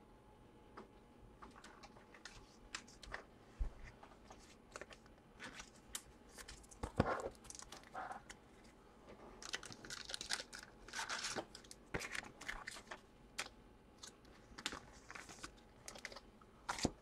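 Small handling noises at a desk: scattered light clicks and taps with short bursts of crinkly rustling, busiest around ten to twelve seconds in, and a couple of dull knocks.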